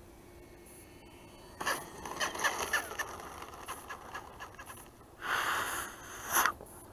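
Scraping and rustling handling noise from a camera being moved, with irregular clicks starting about a second and a half in, a longer rustle about five seconds in and a sharp scrape just before the end.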